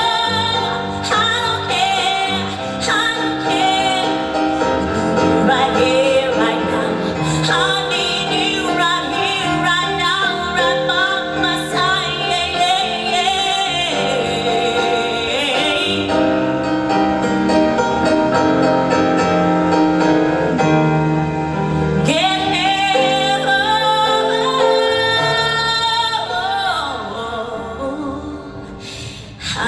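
A woman singing a slow song with vibrato over instrumental accompaniment.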